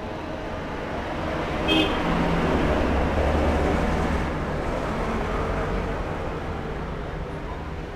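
Road traffic: a vehicle goes past, its rumble swelling and then fading, with a short high beep about two seconds in.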